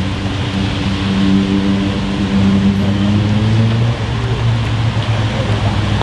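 Twin-turbo 4.0 V8 of an ABT-tuned Audi RS6-R (C8), its petrol particulate filter deleted, running at low revs as the car crawls along, a steady deep drone with a slight change in tone about four seconds in.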